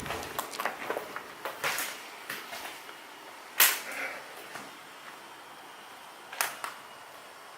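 A run of short, sharp clicks and knocks in the first three seconds, then a louder knock about three and a half seconds in and another near six and a half seconds.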